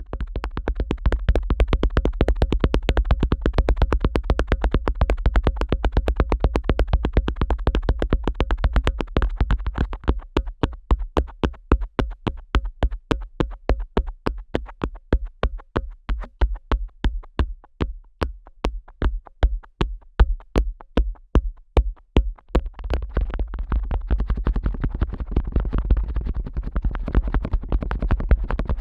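Fingers pressing hard and fast on the ear flaps (tragus) of a Neumann KU100 dummy-head microphone, right on the capsules: a rapid train of muffled, deep thumps, about four or five a second. The thumps come further apart from about a third of the way in, then turn dense again about two-thirds through.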